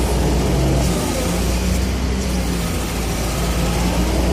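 Kobelco SK210 excavator's diesel engine running steadily with a deep low hum, heard from inside the operator's cab while the boom and bucket are worked.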